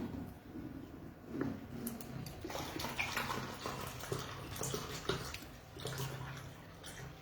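Close-up wet chewing and lip smacking of someone eating beans and fried plantain, a quick run of short moist clicks and smacks.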